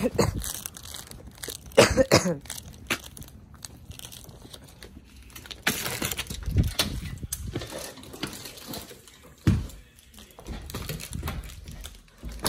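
A storm door's latch and then an inner house door's knob being worked, with a few sharp knocks and clacks of the doors and handles amid handling noise.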